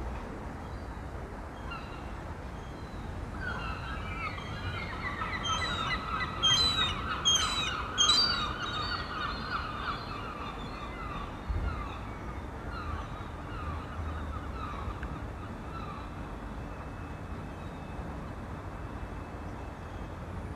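A flock of birds calling: many short, harsh calls overlapping, building up a few seconds in, loudest around the middle, then thinning out. Under the calls runs a low wind rumble on the microphone.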